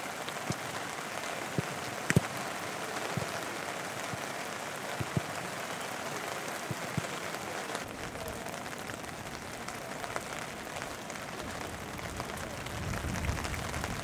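Steady hiss of rain on an outdoor football pitch, with a few sharp thuds of a football being kicked in the first several seconds. The hiss changes texture about eight seconds in, and a low rumble rises near the end.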